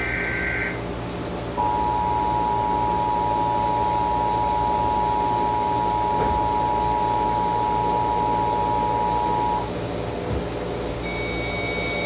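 Emergency Alert System tones: the last of the short data-header bursts, under a second long, then about a second later the steady two-tone attention signal, held for about eight seconds before it cuts off. A low steady hum runs underneath.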